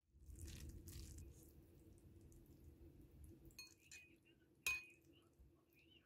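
Metal chopsticks and spoon stirring thick noodles in a ceramic bowl: a faint soft stirring, with a few light clinks of metal on the bowl around four seconds in and one sharper, ringing clink shortly after.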